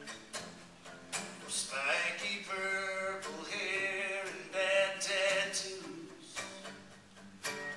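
Music: a voice singing two long phrases over an instrumental accompaniment of evenly spaced notes, with the accompaniment alone at the start and near the end.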